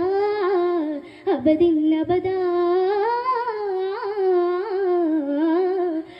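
A girl singing a Mappilappattu solo and unaccompanied: a short phrase, then from about a second in a long line of held notes that waver and bend in ornamented turns.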